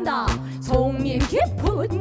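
Live fusion-gugak band music: two electric bass guitars and a drum kit playing a steady groove under pansori-style singing, with wavering, bending vocal notes.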